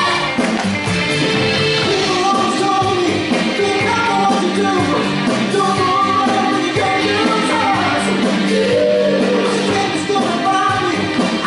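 Live band playing a Motown-style song while a vocal group sings over it, in sustained held harmonies.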